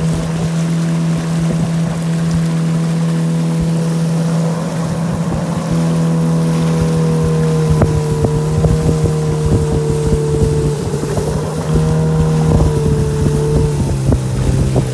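A small boat's motor running steadily. Its pitch shifts slightly a couple of times and drops near the end.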